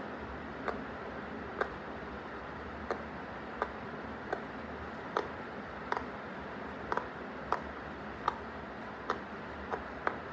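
Silicone pop-it fidget toy bubbles being pressed one after another, each giving a short sharp pop, roughly one a second, over a steady background hiss.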